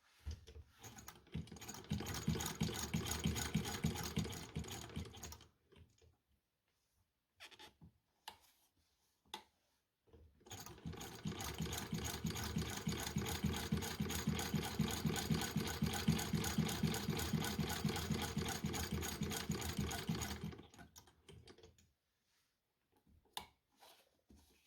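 A century-old sewing machine stitching with a fast, even clatter, in two runs: a short one at the start and a longer one of about ten seconds from near the middle. Single clicks of the mechanism come between and after the runs.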